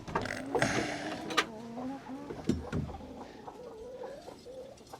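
Hens clucking in the coop with drawn-out, wavering calls, along with a few sharp knocks in the first three seconds.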